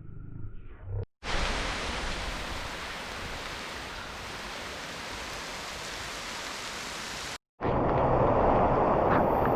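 Steady wind noise on the action-camera microphone of a moving motorcycle, dropping out abruptly for an instant about a second in and again near the end, louder after the second break.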